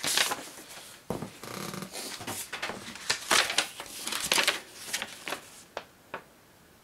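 Paper envelope being opened and a note pulled out: irregular rustling and tearing of paper, thinning out near the end with a couple of light ticks.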